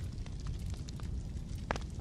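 Wood fire burning in a fireplace: a steady low rumble of flames with irregular crackles and small pops, a sharper pop near the end.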